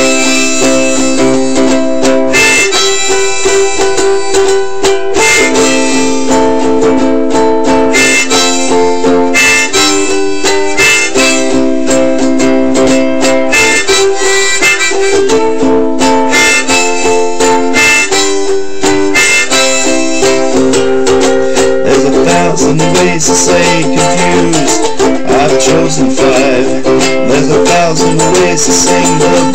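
Harmonica played over a strummed soprano ukulele: held harmonica chords that change every couple of seconds, with steady ukulele strumming underneath.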